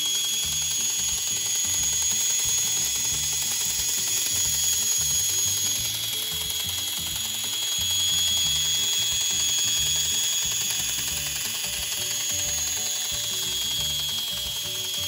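Battery-operated tin toy flying saucer's small electric motor and exposed gear train running, a steady high whine with gear chatter over it. The toy has been rewired and repaired and is working again.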